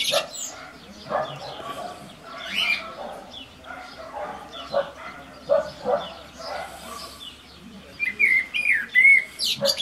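Small birds chirping and calling in short, scattered notes, busiest near the end.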